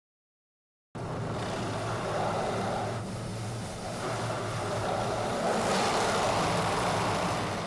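Car under way: a steady low engine hum with road noise. It starts abruptly about a second in and fades near the end.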